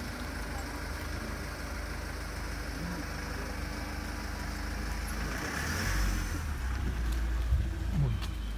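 Street traffic noise: a steady low rumble that swells about six seconds in, as a vehicle passes.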